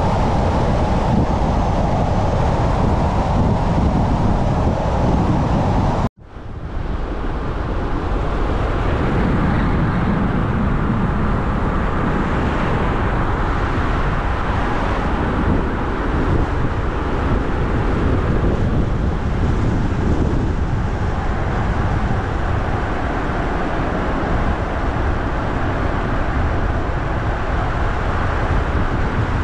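Steady road noise of a moving car, tyre and wind rumble without a distinct engine note. About six seconds in, the sound drops out suddenly for a moment and then returns.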